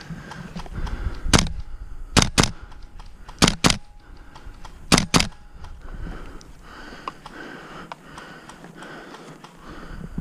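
Airsoft gun firing seven sharp cracks over about four seconds: a single shot, then three quick double shots.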